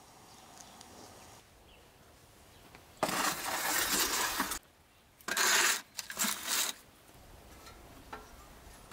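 Metal scraping and clanking at the door of a metal wood-fired oven, in three harsh bursts: the first about three seconds in and lasting over a second, then two shorter ones. The first few seconds are quiet.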